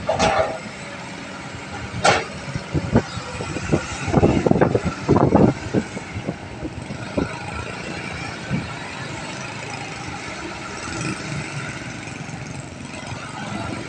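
Kobelco SK200 hydraulic excavator's diesel engine running at idle, a steady hum with a high whine above it. Through the first six seconds or so there is a run of sharp knocks and clatter, which then gives way to the steady engine sound.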